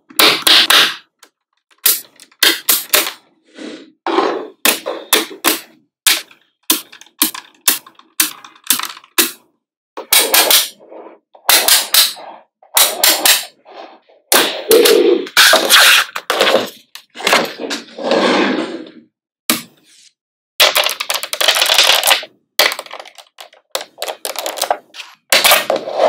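Small magnetic balls clicking and snapping together as they are placed one by one, in quick irregular runs of sharp clicks, with a few longer stretches of scraping rattle.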